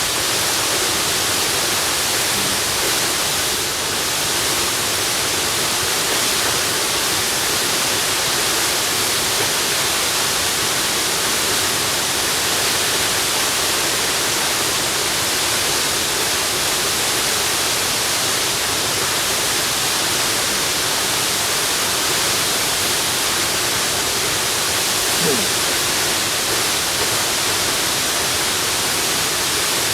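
Waterfall rushing steadily, a constant even hiss of falling water with no breaks.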